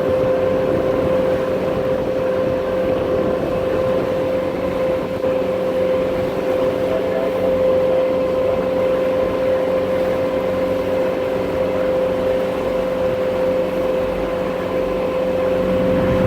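A water taxi's engine running steadily under way, heard on board: a constant drone carrying a strong, steady whine.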